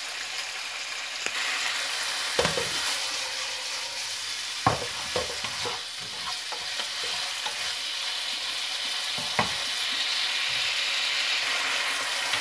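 Diced chicken sizzling in hot oil in a nonstick frying pan, stirred with a wooden spatula that knocks against the pan a few times. The chicken is early in frying, still pale and not yet browned.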